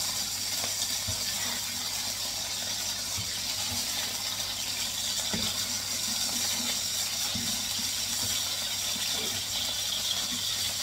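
Oil sizzling steadily in a frying pan under pieces of chicken breast, with scattered clicks and scrapes as a utensil lifts the pieces out of the pan.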